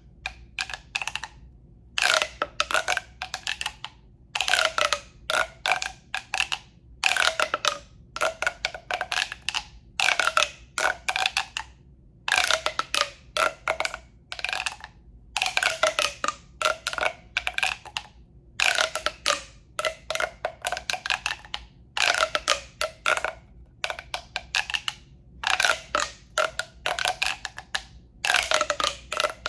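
Quick clusters of taps and scratches on a hollow tube made for ASMR, one burst every couple of seconds. Each burst has a hollow ringing tone whose pitch bends.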